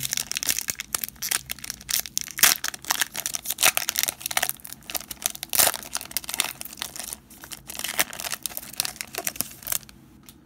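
Foil wrapper of a 2017-18 Status basketball card pack crinkling and crackling as it is handled and opened by hand, a dense run of sharp crackles that stops abruptly near the end.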